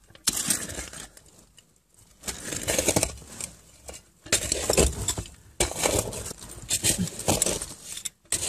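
Sand and loose rubble scraping and crunching in irregular bursts, with small clinks, as the cramped sandy passage is dug and crawled through.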